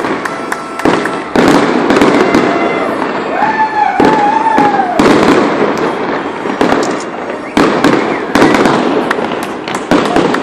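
Fireworks display going off overhead: a dense, continuous barrage of loud bangs and crackling, with a wavering whistle held for about a second and a half near the middle.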